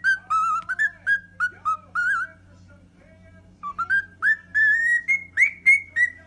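Parrot whistling a tune in short, clear notes, about three a second. The whistling pauses a little over two seconds in, then resumes, with the notes climbing higher near the end.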